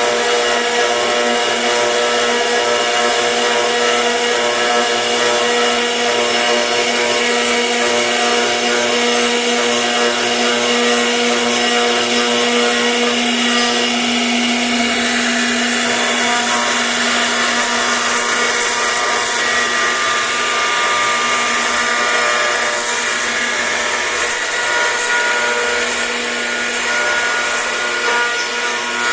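CNC router carving wood: the spindle gives a steady whine over the continuous noise of the bit cutting.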